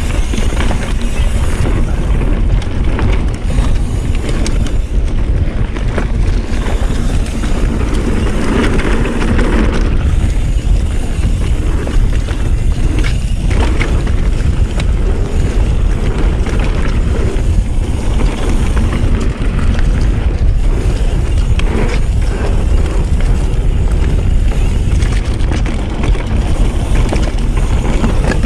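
Mountain bike rolling fast down a dirt singletrack: knobby tyres rumbling over dirt and leaf litter, with small rattles and clicks from the bike. Wind buffets the microphone throughout, keeping the low rumble heavy.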